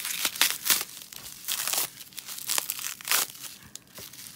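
Plastic bubble-wrap packaging crinkling and tearing in short, irregular crackles as it is pulled off a clear phone case by hand.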